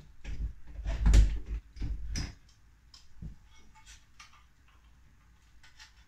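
Knocks and clicks of the Yale Conexis L1 smart lock's handle assembly being fitted and lined up against the door, busiest in the first two seconds, then a few faint ticks.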